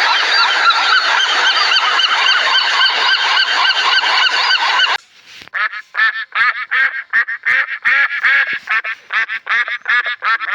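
A flock of birds honking: many overlapping calls for about five seconds, then after a sudden cut, separate short honks in quick succession.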